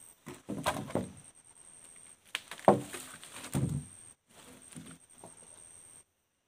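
A long bark-edged offcut of mapala wood dragged and dropped onto freshly sawn planks: two bouts of wooden scraping and knocking, with the loudest thud about two and a half seconds in.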